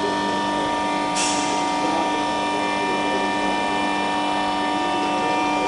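Hydraulic drive of a Lancaster undercarriage demonstration rig running with a steady hum of several held tones as the leg moves through its geometric lock, with a short hiss about a second in.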